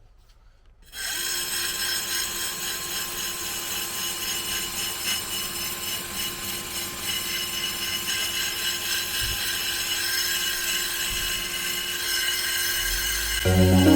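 Power wire wheel spinning and brushing rust off a steel strut top reinforcement panel. It starts about a second in and runs steadily with a constant motor whine. Loud background music comes in just before the end.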